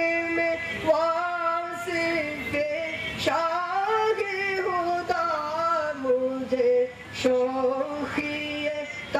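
A man sings solo into a public-address microphone with no instruments behind him. He holds long notes and glides between pitches in ornamented phrases, with short breaks for breath.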